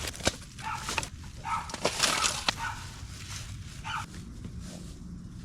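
A dog barking over and over in short, irregular barks, with a few sharp clicks among them; the barking eases off about four seconds in.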